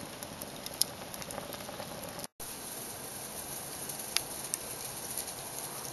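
Wood fire burning in the long horizontal fire tube of a rocket stove: a steady rushing draft with a few sharp crackles. The sound cuts out for a moment just over two seconds in.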